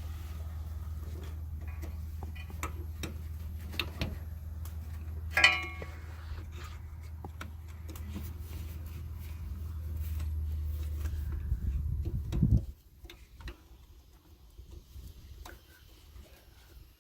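Light metallic clicks and scrapes of a small screwdriver working at a tie rod boot clamp, with one sharper ringing clink about five seconds in. A steady low hum underneath cuts off abruptly about two-thirds of the way through.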